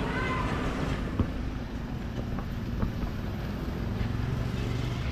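Steady low rumble of street traffic, with wind on the microphone and a couple of faint clicks.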